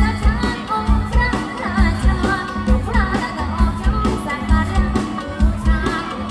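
Thai mor lam music: a singer's wavering, ornamented melody over a band with a steady driving bass beat.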